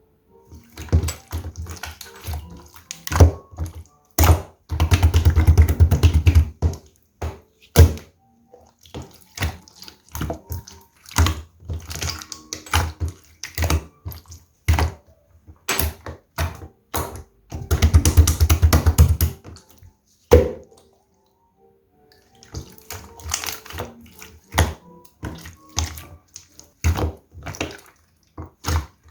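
Clear slime being squeezed, pressed and stretched by hand: wet squelching broken by many sharp clicks and pops of trapped air, with two long dense crackling stretches and a short pause about three-quarters of the way through.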